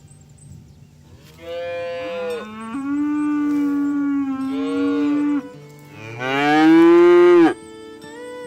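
Cattle mooing: two long moos, the second shorter and louder, with soft background music underneath.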